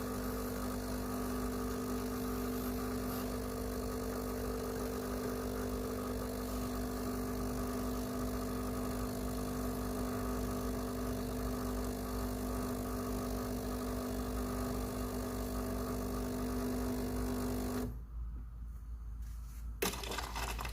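Breville Barista Pro espresso machine's pump humming steadily as it pushes water through the coffee puck during the shot, then cutting off suddenly about eighteen seconds in as the shot ends.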